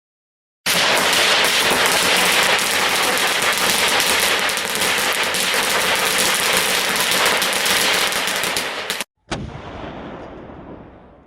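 Fireworks going off in a loud, dense volley of rapid bangs and crackles. It starts about half a second in and cuts off abruptly near nine seconds, then one last burst fades away.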